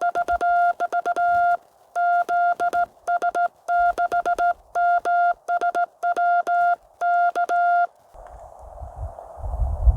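CW Morse code call keyed on a ham radio transceiver, heard as the rig's sidetone: one steady high beep switched on and off in quick dots and dashes, with clean silence between them. After about eight seconds the sending stops and the receiver comes back on with a steady band hiss.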